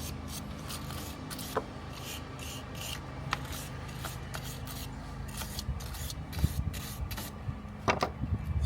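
Quick repeated scrubbing strokes, about two to three a second, of a brush on rusty battery terminals being cleaned of corrosion, over a steady low hum, with a few sharp clicks.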